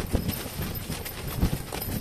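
Wind buffeting an ice-fishing tent: the fabric walls flap with irregular low thumps, several a second.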